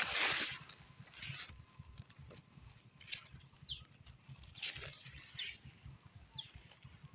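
Outdoor field sounds: bursts of rustling or wind noise, loudest at the start, with a few short, high chirps falling in pitch in the second half.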